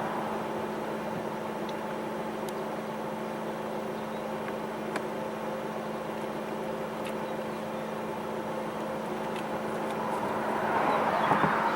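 Roadside traffic. A passing vehicle fades away at the start, then a steady outdoor background with a constant low hum, and another vehicle approaches and swells in the last couple of seconds. No siren tone sounds.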